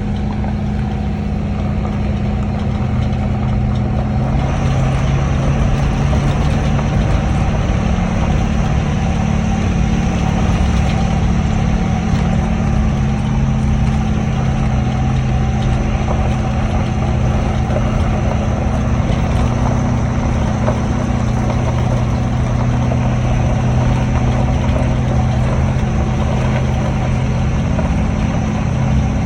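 Ford 6.7L Power Stroke V8 turbodiesel running steadily, with a thin high whine that sets in about four seconds in and holds. The truck's turbo has failed.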